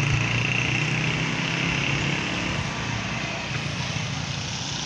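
An engine running steadily, a low hum that eases off about halfway through, over a constant rushing noise.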